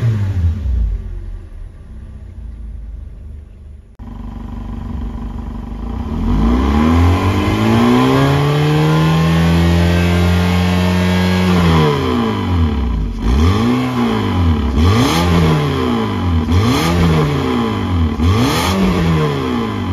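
Toyota 1NR-FE 1.3-litre four-cylinder engine free-revving in Park. Near the start a rev falls back toward idle. Then, heard at the tailpipe, one long rev is held high and let down, followed by a series of short throttle blips about every two seconds.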